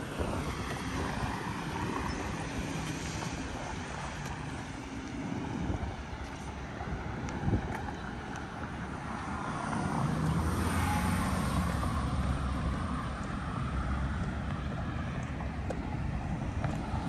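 Outdoor city street sound: road traffic going by, swelling louder as a vehicle passes about ten seconds in, with a low wind rumble on the microphone. There is a single short knock about seven seconds in.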